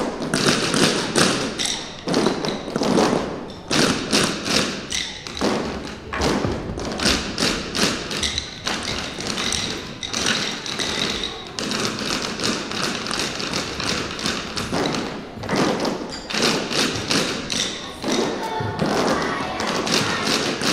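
A group of children striking wooden sticks on the stage floor, many taps and thuds together in a quick, somewhat ragged rhythm.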